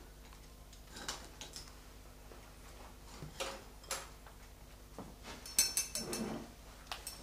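Light clicks and knocks of wooden-handled paintbrushes being handled in a ceramic brush pot and against the glaze pots, with a short cluster of clatter about six seconds in, over a faint steady hum.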